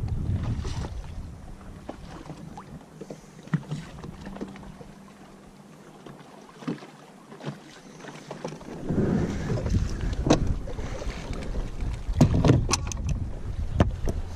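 Wind rumbling on the microphone aboard a small fishing boat, easing off for several seconds and picking up again about nine seconds in, with scattered sharp knocks and clicks.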